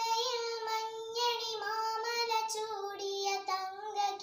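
A young girl singing a Malayalam patriotic song solo, holding long, steady notes.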